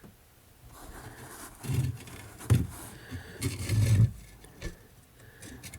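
Irregular scrapes, knocks and handling noises as a work light and camera are shifted into position, with a few louder dull thumps between about one and a half and four seconds in.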